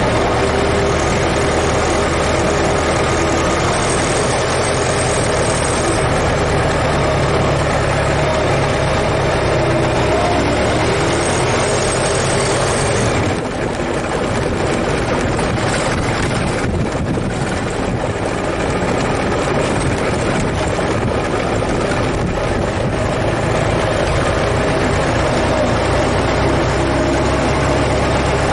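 Ford Model T's four-cylinder flathead engine running steadily, with a brief dip in level about halfway through before it carries on.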